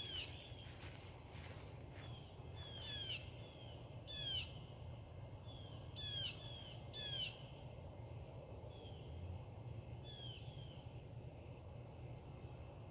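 A songbird repeating short, clear downward-slurred chirps, often in quick pairs, every second or two, over a steady low background hum.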